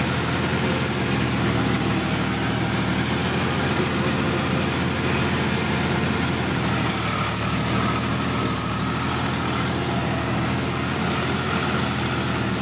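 Sonalika DI-50 RX tractor's diesel engine running steadily, heard close up from the driver's seat, its pitch holding level with no revving.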